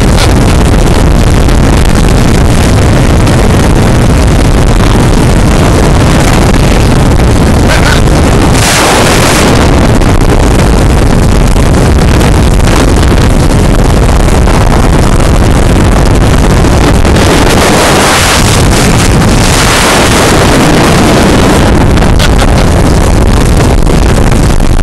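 Heavy wind buffeting the microphone on a motorboat under way, over the boat's engine and the hull on choppy water. The wind noise swells in louder gusts about nine seconds in and again around seventeen to twenty seconds in.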